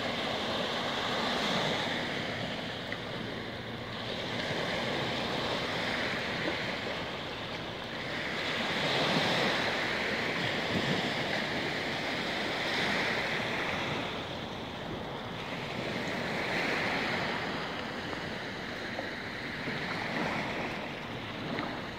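Small waves lapping and washing up on a sandy, pebbly shore, the wash swelling and ebbing every few seconds.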